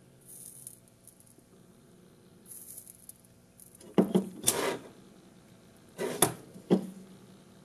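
Handling noise of a small brushless drone motor and a soldering iron on a workbench: two faint short high hisses, then a cluster of sharp knocks and clatter about four seconds in and again about six seconds in as the motor is put down and picked up.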